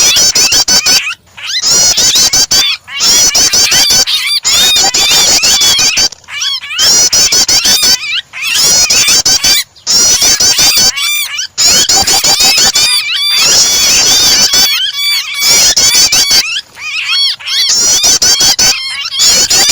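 Prinia (prenjak) calls mixed with the frantic distress calls of a trapped bird. Loud, fast, dense chirping comes in runs of a second or two with short breaks. It is a 'starter' track that bird-keepers play to provoke caged birds into calling.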